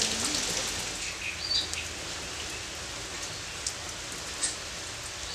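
Steady rain falling, with a few sharper taps of single drops, one just before the end.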